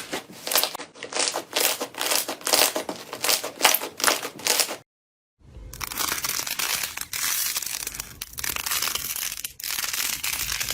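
Slime being worked, crunching and crackling in quick irregular bursts. It stops dead for about half a second about five seconds in, then a denser crunching starts again.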